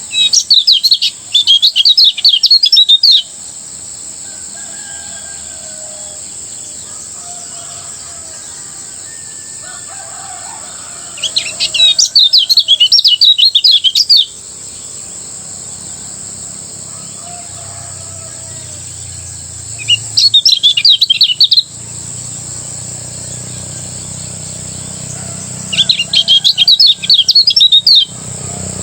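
Kecial kuning (white-eye) singing its rapid chattering 'ngejos' song in four bursts of two to three seconds each, with long pauses between them. A steady high-pitched buzz runs underneath throughout.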